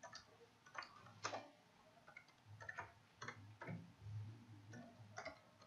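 Faint computer keyboard keystrokes, a dozen or so irregular clicks with short gaps between them.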